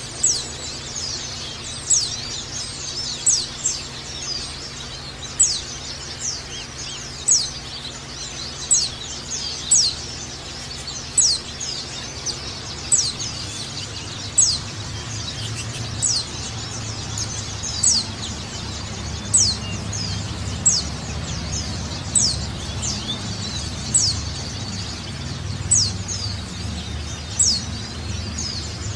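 White-eye (pleci) giving repeated short, sharp call notes that sweep downward in pitch, about one every second or so, sometimes in pairs, over a steady low hum that swells about halfway through.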